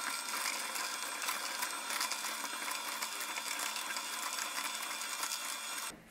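Vertical slow juicer running, its auger crushing kale, apple and carrot chunks with a steady, dense crackle as the green juice runs out of the spout. It cuts off suddenly near the end.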